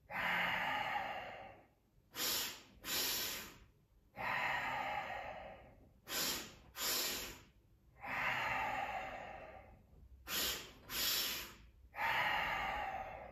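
A man doing cobra breathing: two quick, sharp sniffs in through the nose, then a long exhale, repeated in a steady cycle about every four seconds. There are four long exhales and three pairs of sniffs.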